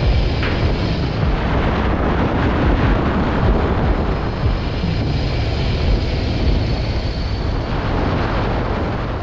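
Steady wind rush and low buffeting on an action camera's microphone on a motorcycle at speed, with the motorcycle's engine running underneath.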